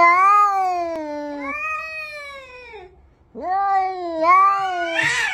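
Domestic tabby cat yowling at another cat through a window: three long, drawn-out, wavering calls in a row, a territorial caterwaul. A harsher, rougher cry comes near the end.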